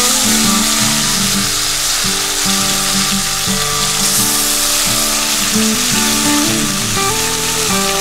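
Marinated pork sizzling in a hot cast-iron Dutch oven over a campfire as it is turned with tongs, with background music playing over it.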